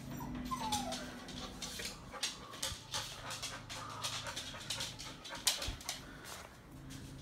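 A dog whimpering: one short whine falling in pitch about half a second in, followed by a run of sharp clicks and scuffs.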